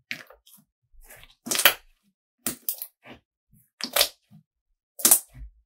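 Blue slime being kneaded and pressed by hand, giving short wet crackles and pops. There are about five louder ones a second or so apart, the loudest about one and a half seconds in and another near the end.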